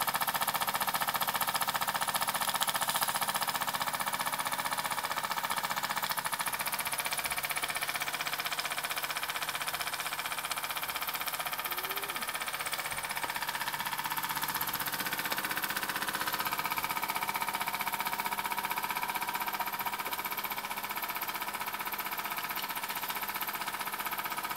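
Mamod ME3 model steam engine running steadily on the bench with a fast, even beat and a hiss of exhaust steam, turning a three-bladed brass propeller in the air.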